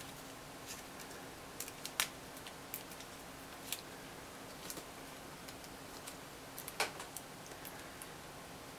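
Faint scattered clicks and crinkles of small plastic sachets of soy sauce and mustard being opened and squeezed over natto in its foam tray, the sharpest click about two seconds in.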